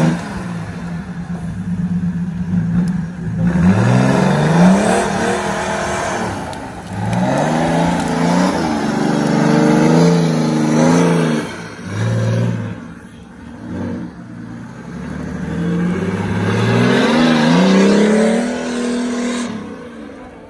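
Off-road prototype buggy's engine revving hard under load in repeated bursts, each a rising climb in pitch that drops back, roughly every four seconds, as the buggy works its way through a ditch.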